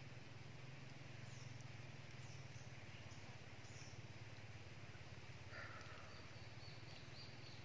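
Faint quiet outdoor ambience: a few short, high bird or insect chirps scattered over a low steady hum, with a quick run of high notes near the end.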